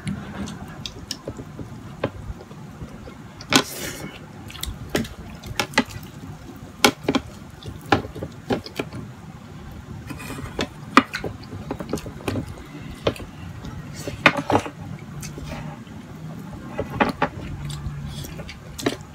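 Close-up eating sounds of someone eating kimchi and meatloaf: wet chewing and mouth sounds, with irregular short clicks of a metal spoon and fork against a plate.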